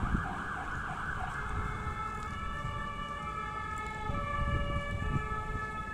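Fire engine siren on a responding fire truck: a fast yelping wail that, about a second in, switches to steady tones stepping between two pitches, over a low rumble of engine and traffic.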